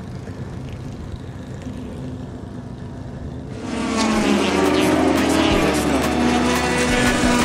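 A low, steady engine hum, then from about three and a half seconds in the louder, higher engines of several classic touring race cars running on the circuit, with some falling pitch as cars pass.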